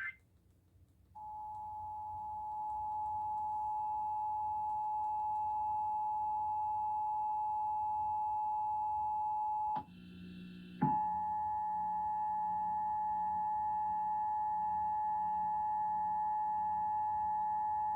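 Emergency Alert System two-tone attention signal sounding steadily. It starts about a second in, breaks off for about a second near the middle, then carries on unchanged.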